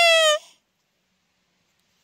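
Hand-held sika deer caller blown by mouth, imitating a sika deer's call. The end of one long whistling call falls in pitch and cuts off suddenly about half a second in.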